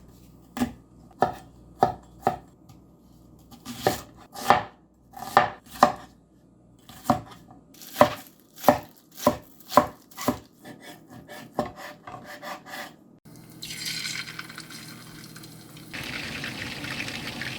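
A knife chopping on a cutting board: about twenty sharp strikes in irregular runs, roughly two a second. It gives way about three-quarters of the way through to a steady hissing noise.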